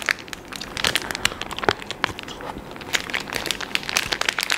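Plastic food packet crinkling and crackling as it is handled and opened, a run of quick, irregular crackles.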